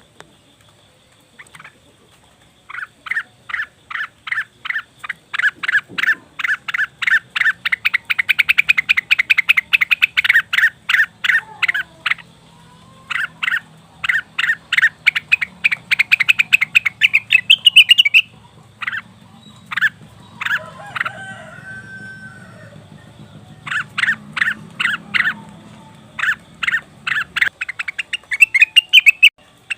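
Cucak wilis (rengganis) calling, used as a lure: long runs of rapid, sharp chattering notes, several a second, broken by short pauses, with a softer, wavering phrase in the middle.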